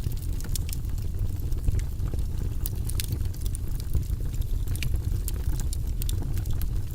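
Fire burning in a fireplace, crackling: irregular sharp snaps and pops over a steady low rumble.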